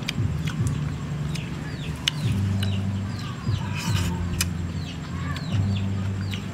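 Outdoor rural background: many short falling bird chirps over a low engine-like hum that comes and goes and shifts in pitch, with a few sharp clicks.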